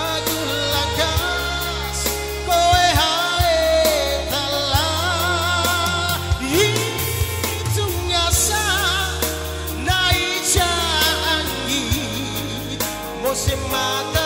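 Male singer singing a slow song live through a microphone and PA, his held notes wavering with vibrato, accompanied by a Yamaha PSR-S975 arranger keyboard playing bass and backing parts.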